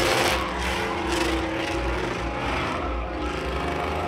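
GMC Sierra pickup's engine revving as it spins its tyres in a smoky burnout.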